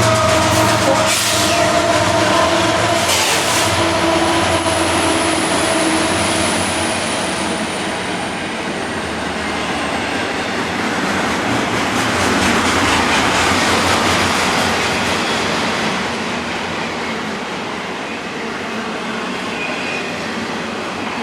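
Freight train rolling past. A diesel locomotive's engine drone fades out over the first few seconds, leaving the steady rumble of freight cars rolling by. There are a couple of clanks early on and a thin, high wheel squeal that slowly drops in pitch and dies away.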